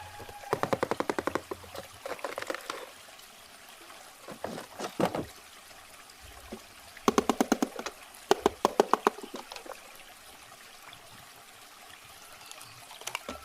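Water pouring and gurgling in several short bursts of quick, rhythmic glugs, with quieter trickling between them.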